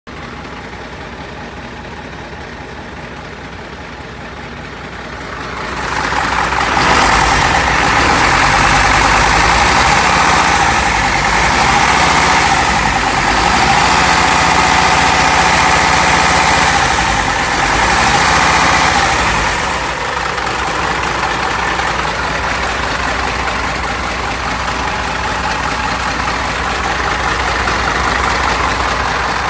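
Hino Ranger truck's turbo-diesel engine idling steadily. About six seconds in it grows louder, with a strong hiss over the running, as heard up close in the open engine bay, then eases back somewhat near twenty seconds.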